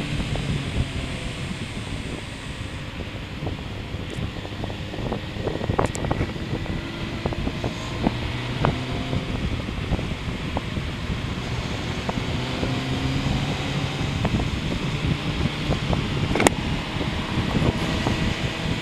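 Motorcycle engine running under way, its pitch rising and falling gently with speed, under heavy wind rumble on the microphone. One sharp click comes near the end.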